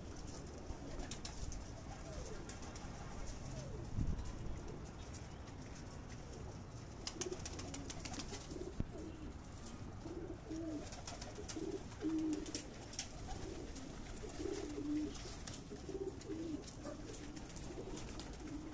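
Domestic pigeons cooing in their loft. The short, low, repeated coos thicken from about seven seconds in, over scattered light clicks. A dull thump comes about four seconds in.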